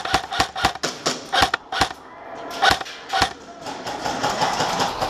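Airsoft guns firing single shots at an uneven pace, sharp snapping cracks in a hard-walled indoor arena, followed by a faster run of fainter clicks in the last second and a half.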